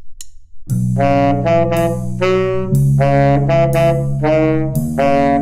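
The last click of a drumstick count-in, then a jazz saxophone section enters about half a second later, several saxophones playing loud held chords over low sustained notes, with short stabbed notes between the chords, which change about every two seconds.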